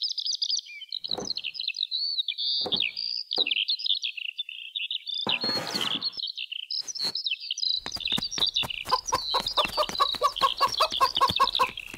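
Small birds chirping continuously, with a few soft taps as small craft pieces are set down on sand. From about eight seconds in comes a fast, even run of clicks with a faint steady tone under it.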